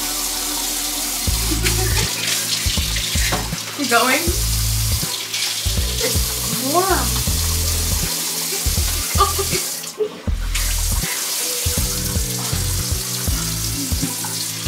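Kitchen faucet running into the sink, filling a cup with water.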